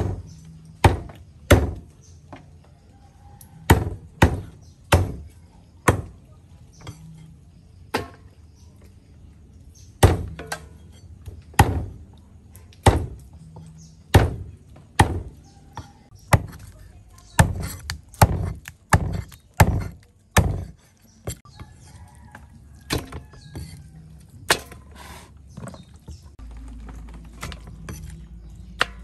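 Cleaver chopping frog into pieces on a round wooden chopping block: a series of sharp knocks as the blade strikes the wood, irregular at about one a second and quicker for a stretch around two-thirds through. The chopping stops a few seconds before the end.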